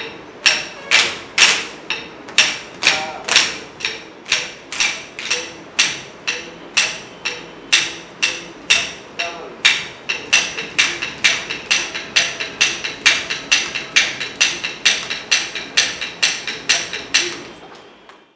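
Sharp, evenly spaced struck beats, about two a second, each with a short ringing tone, keeping time for barefoot classical dance practice.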